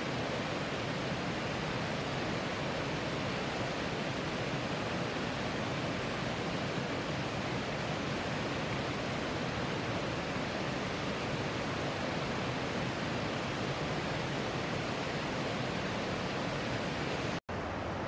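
Steady, even rushing of river water, with no duck calls heard. The sound cuts out for an instant near the end and returns slightly duller.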